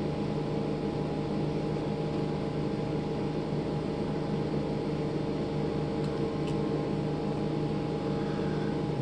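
A steady mechanical hum holding several fixed pitches, with a faint tick about six and a half seconds in.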